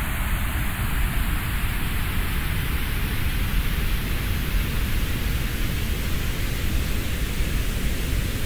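Steady, static-like noise used as a mock 'space sound' for a moon of Jupiter: a deep rumble under a hiss. It cuts in suddenly and holds even throughout.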